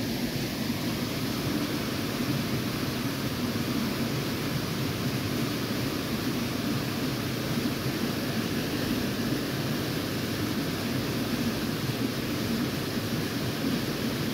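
Shallow stream running over stones, a steady rushing of water.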